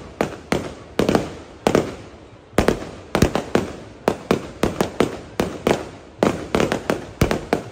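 Fireworks going off in a rapid, irregular string of loud bangs, several a second, each followed by a short echo.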